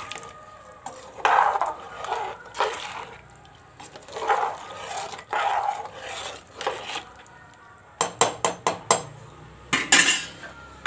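Metal ladle stirring a watery rice-and-lentil mixture in a pressure cooker: a string of sloshing swishes, then quick clinks and taps of the ladle against the pot about eight seconds in and again near the end.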